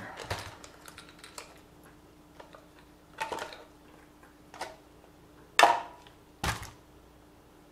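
Scattered plastic clicks and knocks from a small Xinlehong RC car being handled and set down: about five separate taps, the loudest about five and a half seconds in, over a faint steady hum.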